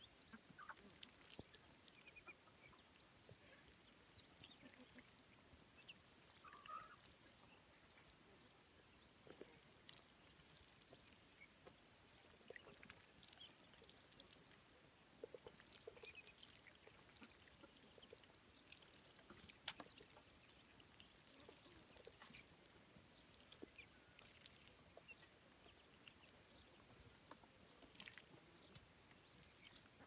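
Faint sounds of a flock of ducks, ducklings and chickens foraging: scattered soft calls and peeps with small clicks between them.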